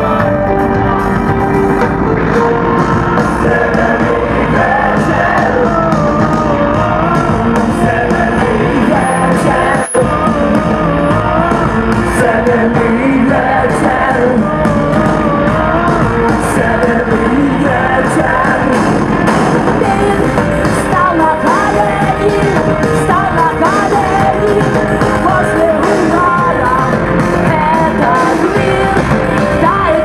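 A woman singing lead over a live rock band with drums, electric guitar and keyboards, loud and steady throughout. The sound briefly drops out about ten seconds in.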